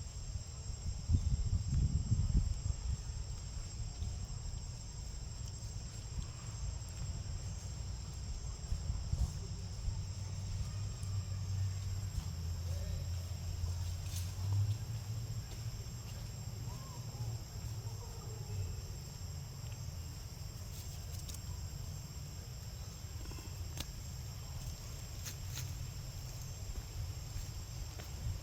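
Steady high-pitched insect chirring, with a low rumbling noise underneath that swells about a second in and again midway, and a few faint clicks.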